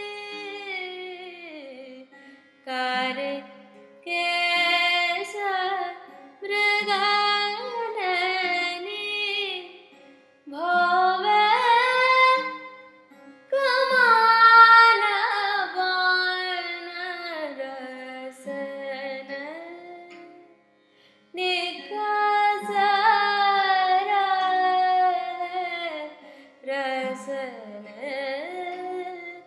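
A woman singing a wordless, melismatic alaap in raga Rageshree: gliding, ornamented phrases a few seconds long separated by short breaths, with the longest and loudest phrase about halfway through and a brief pause after it before the singing resumes.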